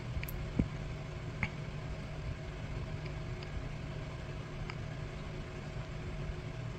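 Room tone: a steady low hum with a few faint, scattered clicks.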